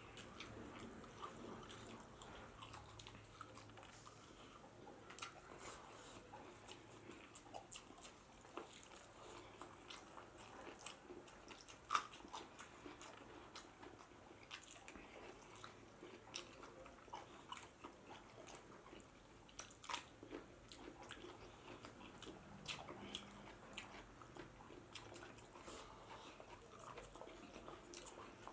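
Faint mouth sounds of a person chewing and biting into pork biryani with rice, with many small wet clicks and smacks and a sharper click about twelve seconds in.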